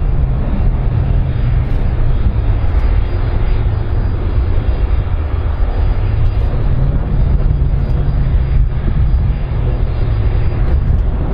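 Airbus A310-304's twin General Electric CF6 turbofan engines running as the jet moves along the ground: a steady, loud jet rumble with an even hiss above it.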